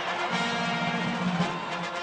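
Orchestral music with long held low notes coming in shortly after the start.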